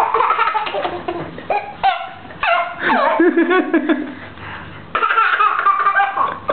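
People laughing in several bouts, broken by short pauses.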